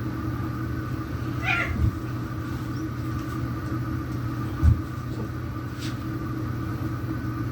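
Two cats fighting: one short cat cry about a second and a half in, and dull thumps soon after and near five seconds, over a steady low background hum.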